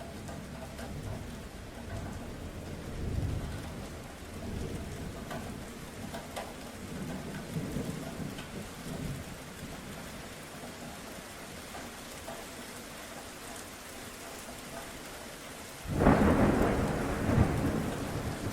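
Steady rain falling, with low rolls of thunder through the first half. About sixteen seconds in comes a sudden loud thunderclap that rumbles on.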